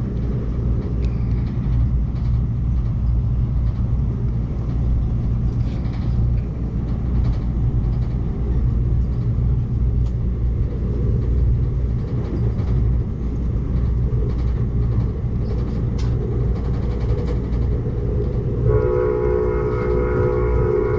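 Amtrak Cascades passenger train running at speed, heard from inside the coach: a steady low rumble of wheels on rail with light clicks. Near the end the locomotive horn sounds a steady chord of several tones.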